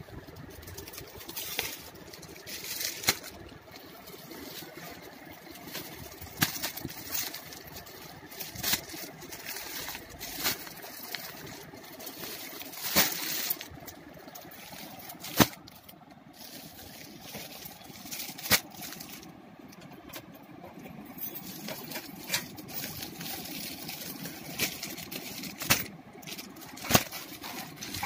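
Clear plastic garment packets crinkling and rustling as they are handled and flipped one onto another, with sharp crackles at irregular intervals over steady background noise.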